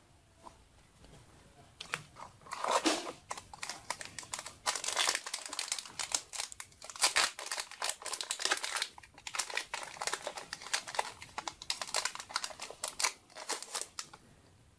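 Foil wrapper of a trading-card booster pack crinkling and crackling as it is handled and torn open, starting about two seconds in and stopping just before the end.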